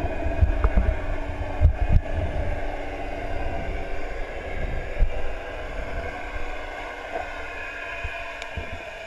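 Muffled underwater sound heard through a GoPro Hero 3's waterproof housing: a low rumble of water moving past the case, with several dull knocks in the first two seconds and one about five seconds in. Underneath runs a steady hum of several held tones that slowly grows fainter.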